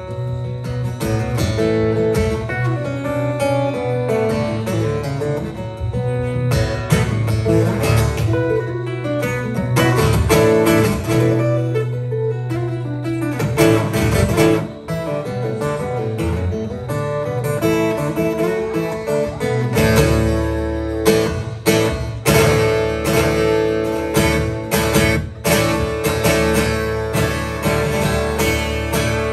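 Solo acoustic guitar instrumental: picked melody notes over held bass notes, played live.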